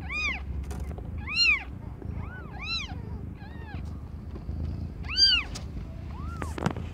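Newborn kittens crying: about seven short, high-pitched mews, each rising and falling in pitch.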